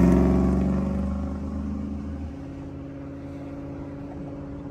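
GM 5.3-litre V8 running through a catless true dual exhaust with Borla XR1 mufflers and an X-pipe, coming down off a rev and settling to a steady idle about two seconds in.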